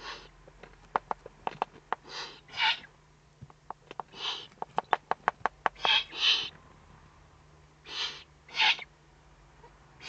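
Eurasian eagle-owl chicks giving short, raspy hissing begging calls, about eight of them and often in pairs, while being fed at the nest. A quick run of sharp clicks comes through the middle.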